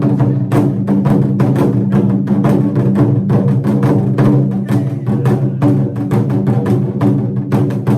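Taiko drumming: a fast, steady run of stick strokes on the drum heads over their deep, ringing tone.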